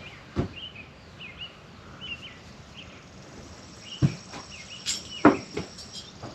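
A small bird chirping again and again in short rising-and-falling notes, with three sharp knocks, the loudest about five seconds in.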